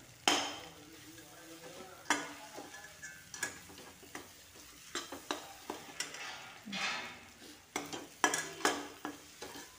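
A flat spatula stirring and scraping scrambled egg (egg bhurji) around a metal kadai, with irregular scrapes against the pan over a light sizzle of frying.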